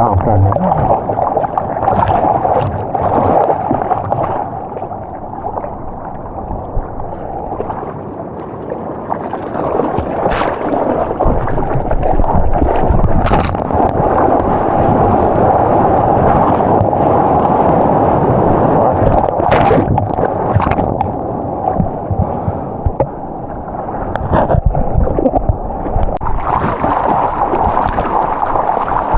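Ocean water sloshing and rushing around a surfer, heard muffled, swelling and easing with a few brief sharp splashes.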